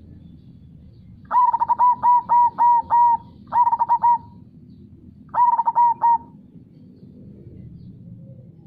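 Zebra dove (perkutut) cooing in three phrases of quick repeated notes, the first longest at about six notes, the next two shorter. Underneath runs a steady low rush of river water.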